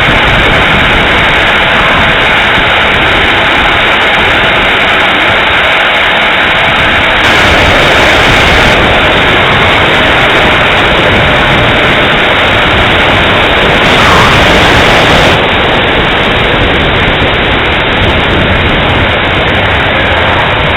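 Twin 70 mm electric ducted fans running, a loud, steady rushing whoosh.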